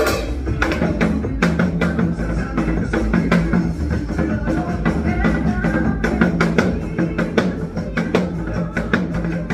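Music with a busy drum beat: frequent drum strikes over a steady bass line.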